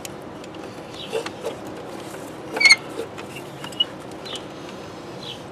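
Small metallic clicks and taps of a ground-wire terminal and bolt being fitted by hand to the engine-bay bracket, with one louder metal clink about halfway through.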